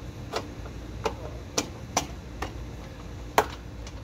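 Plastic lower valance being pressed into a Toyota Tacoma's front bumper: about half a dozen sharp, irregular plastic clicks as its clips snap into place, the loudest near the end.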